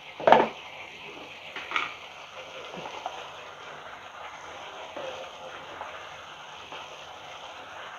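Onion-tomato masala sizzling steadily in a frying pan as yogurt is stirred into it, with a sharp knock of the spoon on the pan just after the start and a lighter one near two seconds.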